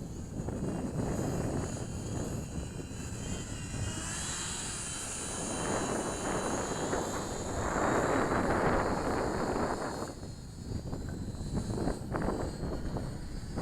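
Twin electric motors and propellers of a micro RC P-38 model plane whining in flight. The whine strengthens and wavers in pitch about four seconds in and is loudest around eight seconds as the plane comes close. Rough wind rumble on the microphone sits underneath.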